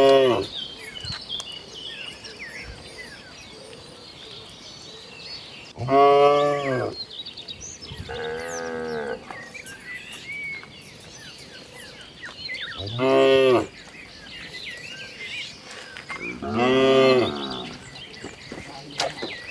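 Cattle mooing, one long call every few seconds, five in all, some louder and deeper than others.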